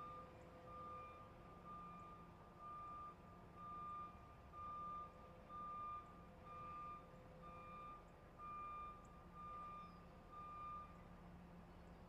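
A truck's warning beeper sounds about once a second in even, same-pitched beeps, like a reversing alarm, and stops shortly before the end. A steady low engine hum runs underneath.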